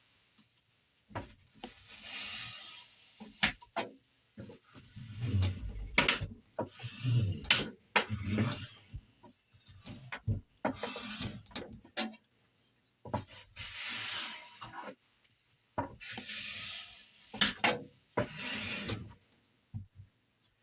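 Hands rubbing and smoothing a silicone heater pad onto an aluminium plate in repeated strokes of about a second each, with scattered clicks and a few dull knocks as the pad and plate are handled.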